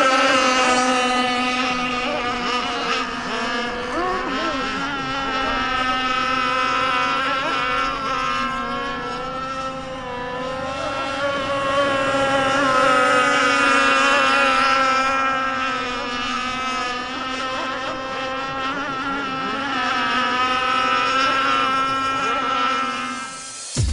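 51-inch Micro Burst RC boat's engine running at a steady high pitch with small wavers, swelling and fading a few times as the boat runs on the water.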